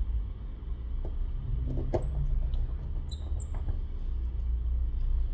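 Precision Phillips screwdriver working tiny screws into a phone's frame: faint clicks and a few short, high squeaks about two and three seconds in, over a steady low hum.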